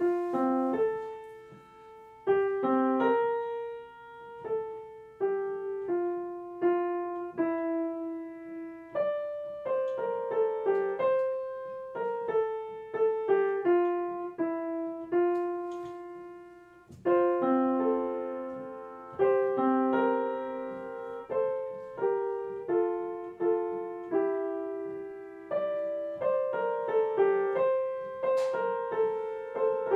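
Solo piano music, a melody of struck notes, each ringing and fading.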